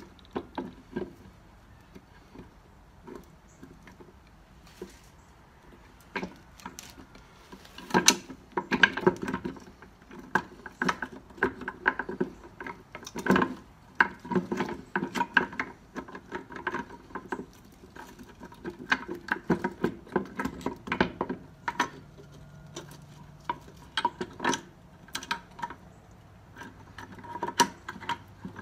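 Steel gears and shafts of a 1953 Dodge three-speed manual transmission clinking and clattering in the open case as they are worked by hand. Scattered taps at first, then a steady run of clinks from about eight seconds in.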